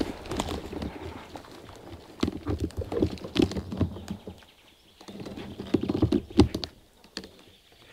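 Footsteps through grass and dry forest undergrowth, with rustling, small snaps and the plastic airsoft rifle and its sling knocking and rattling close to the microphone. They come in uneven bursts, with a lull about halfway through and again near the end.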